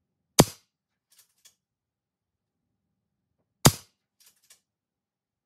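Two shots from a Reximex Lyra .177 PCP air rifle, sharp cracks about three seconds apart. A second or so after each shot come a couple of faint clicks.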